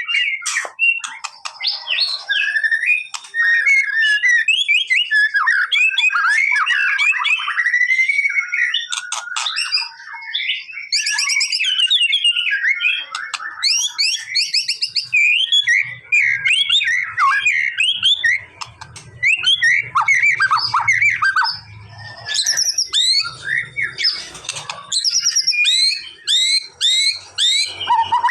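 White-rumped shama singing a loud, continuous song of varied clear whistles, quick up-and-down sweeps, rapid trills and harsh chattering notes.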